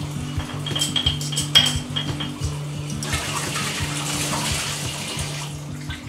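Glass clinking at a kitchen sink, then a tap running onto a glass bottle being rinsed, starting about three seconds in.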